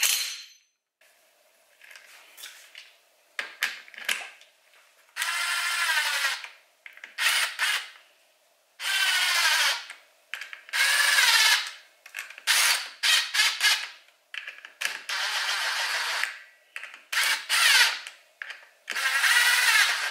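DeWalt cordless impact driver running in a string of short bursts, winding up and down, as it drives in the bolts of a motorcycle clutch pressure plate.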